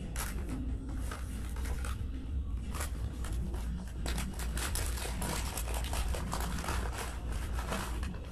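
Paper napkin rustling and crinkling as it is handled and wiped around a soup spoon, a dense run of small crackles close to the microphone, over a steady low hum.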